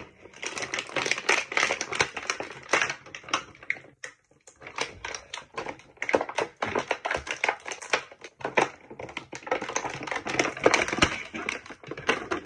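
Clear plastic packaging crinkling and crackling in quick runs of small clicks as a toy action figure is unwrapped from it, with a short pause about four seconds in.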